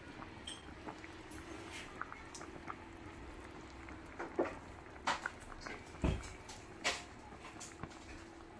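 Beef pot roast broth simmering in a cast iron Dutch oven: small irregular pops and bubbling, with a few louder pops around the middle and a dull knock about six seconds in, over a steady low hum.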